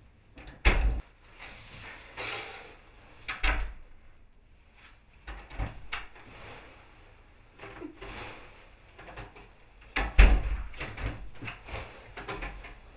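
Scattered knocks and bumps, like drawers and cupboard doors being opened and shut, with softer rustling between them and a louder run of knocks about ten seconds in.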